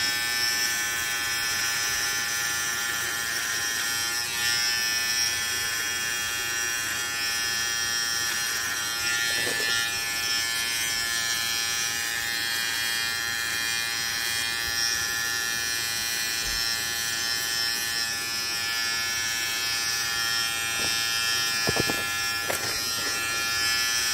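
Philips BT3221/15 cordless beard trimmer running with a steady, even buzz. Its bare blade, with no comb fitted and set to zero, cuts stubble on the chin and neck. The motor is running smoothly.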